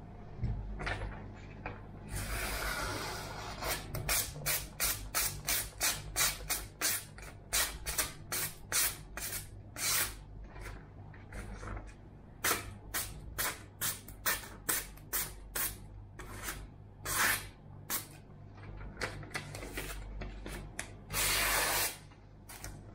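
Freshly sharpened kitchen knife slicing through a magazine page in a paper-cutting sharpness test. A longer hissing cut comes first, then a quick run of short slicing strokes at about two a second, with a few longer cuts later on.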